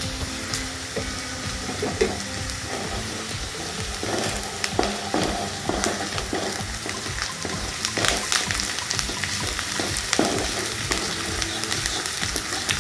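Sliced onions sizzling in hot oil in a pan, with a spatula stirring and scraping against the pan. The scraping strokes come more often from about four seconds in.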